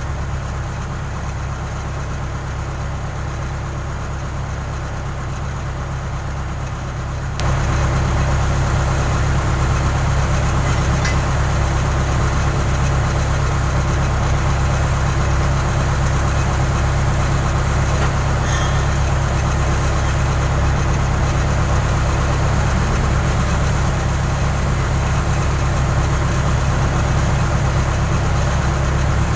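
Diesel engine of a Case 580 Super K backhoe running steadily, getting suddenly louder about seven seconds in and then holding a steady, louder note.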